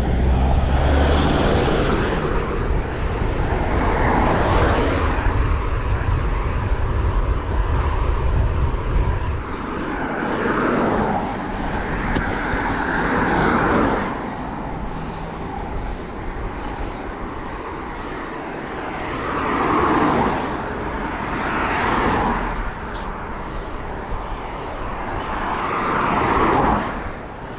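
Road traffic passing a cyclist: a car overtakes with a low engine rumble over the first nine seconds or so, then more vehicles swell and fade past every few seconds.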